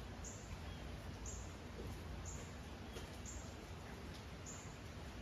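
A short, high-pitched chirp repeating at a steady pace of about once a second, over a faint low hum.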